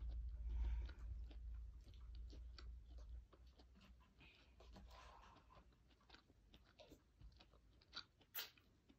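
Faint crunching and small clicks of a person eating from a paper cup, over a low hum that fades out about three seconds in. Two sharper clicks come near the end.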